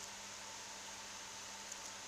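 Steady hiss with a faint high whine and low electrical hum: the small clip-on camera's own recording noise with no other sound nearby. A single faint tick comes near the end.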